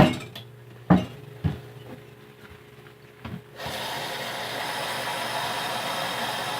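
A few sharp knocks as glasses are set down, then water running steadily into a glass for about three and a half seconds, starting a little past halfway.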